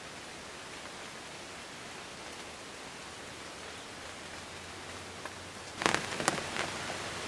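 Steady hiss of light drizzling rain. About six seconds in, a short burst of rustling and a few sharp clicks, the loudest sound here, from something being handled close to the microphone.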